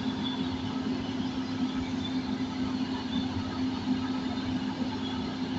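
Heavy diesel engine running steadily at a constant pitch, with a continuous hum.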